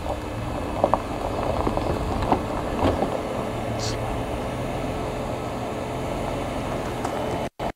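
2022 Toyota Tundra TRD Pro's twin-turbo V6 running at low revs as the truck crawls slowly over a gravelly dirt mound, with a few sharp crunches of stones under the tyres.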